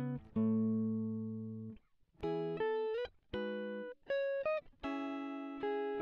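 Background music: single plucked guitar notes in a slow melody, each ringing and fading, with short gaps between them.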